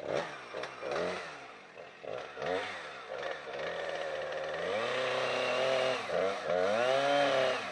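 Two-stroke chainsaw engine revved in short throttle bursts, then held at high revs from about four seconds in, its pitch sagging and recovering.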